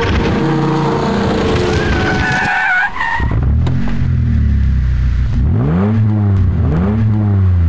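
Car sound effects: tyres squealing for about the first three seconds, then a deep engine running and revving up and down twice near the end.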